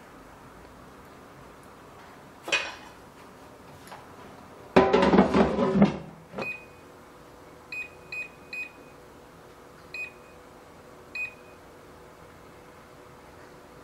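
Tefal air fryer being closed and set: a short clatter, then a loud clunk and rattle lasting about a second as the pan and lid go into place, followed by five short high beeps from the touch control panel as the cooking program and time are set.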